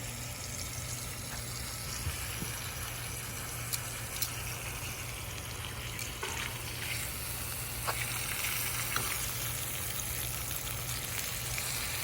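Food sizzling in a frying pan: a steady frying hiss with scattered small pops, over a steady low hum.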